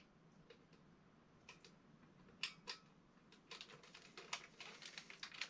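Faint, scattered clicks and taps of a plastic Inromaru toy and its disc being handled, coming more often in the second half.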